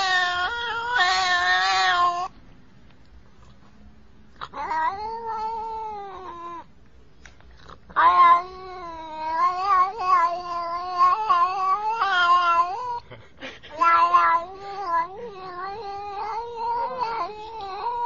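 Domestic cat yowling in long, wavering, drawn-out calls. One call comes at the start and another about four and a half seconds in. From about eight seconds in there is an almost unbroken string of yowls, with a brief break around thirteen seconds.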